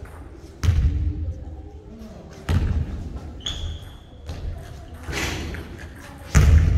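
A basketball bouncing on a hardwood gym floor, three heavy thuds a couple of seconds apart, each echoing through the hall. A short high squeak comes about halfway through.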